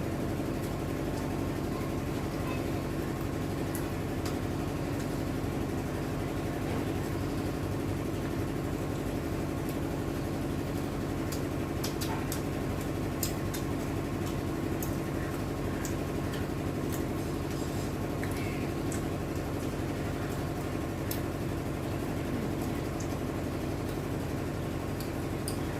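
A steady machine hum, several low pitches held at an even level, with scattered faint clicks of eating.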